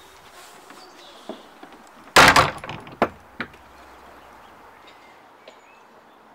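A wooden door shutting with a loud bang about two seconds in, followed by two smaller knocks about a second later.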